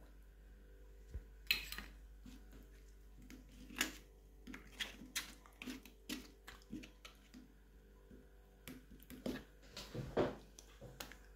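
Hands handling slime and its plastic pots: irregular taps, clicks and small squelches, with the sharpest knocks about one and a half seconds in and near the end.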